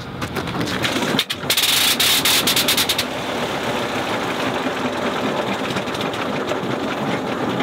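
Sopwith Pup's rotary engine, hand-propped, catches about a second and a half in with a loud burst of rapid firing, then keeps running rough without picking up. It is a start that does not hold, the engine not drawing in enough fuel.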